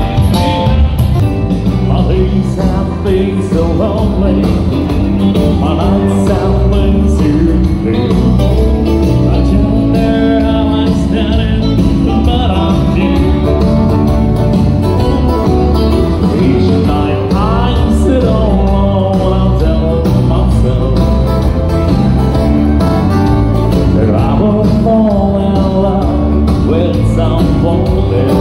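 Loud dance music with a singer over a steady beat.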